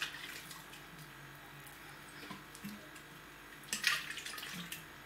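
Watery rye sourdough starter dripping and sliding out of an upturned glass jar into a bowl of flour, quietly, with one short louder sound a little before four seconds in.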